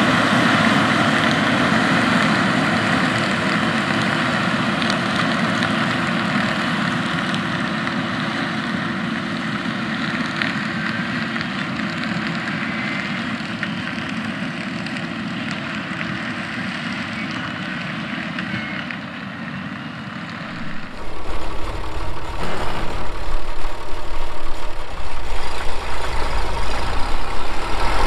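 Challenger MT775E rubber-track tractor's engine running as it pulls a working manure spreader, slowly fading as it moves away. About 21 seconds in, this gives way to the louder, uneven low rumble of an Oliver 1755 tractor's engine pulling a loaded manure spreader.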